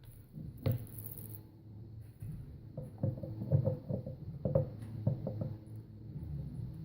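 A series of light knocks and clicks of wooden pieces and tools being handled on a workbench during a cutting-board glue-up. One sharp knock comes near the start, then a cluster of knocks a few seconds in.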